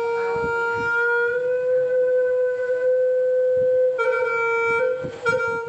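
Music: a wind instrument holds one long, steady note, then sounds it again with a fuller tone about four seconds in.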